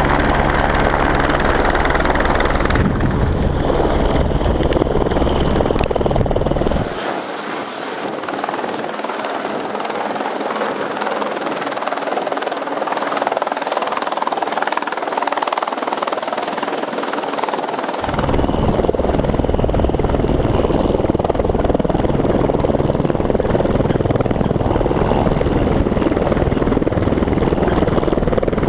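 Eurocopter AS350 B3+ Écureuil single-turbine helicopter hovering low over the pad, its main rotor beating with a deep steady throb over the turbine's rushing noise. About seven seconds in the deep beat drops away and the sound is thinner and a little quieter, and the heavy close throb returns about eighteen seconds in.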